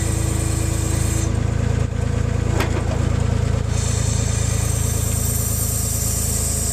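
Skid loader engine running steadily at a low, even beat. A high hiss over it drops away for a couple of seconds near the middle, and a single sharp click comes about two and a half seconds in.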